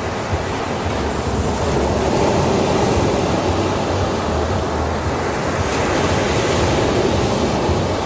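Ocean surf breaking and washing up a sandy beach: a steady rushing that swells a little twice, about two seconds in and again near the end.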